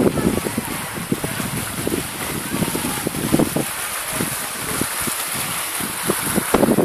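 Wind buffeting the camera's microphone in uneven gusts, with a steady hiss underneath; the gusts ease off in the middle and pick up again near the end.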